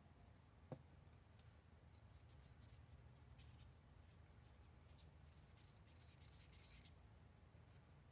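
Faint scraping and ticking of a stir stick against the inside of a cup as a drop of pigment is mixed into resin, with one small click about a second in.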